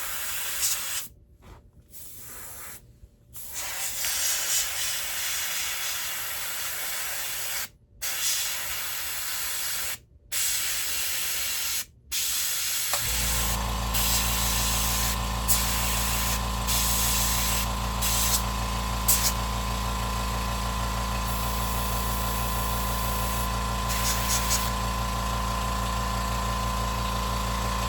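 Airbrush spraying paint, a hiss broken by several short pauses as the trigger is released. About 13 seconds in, the airbrush's air compressor switches on and runs with a steady hum under the continuous hiss.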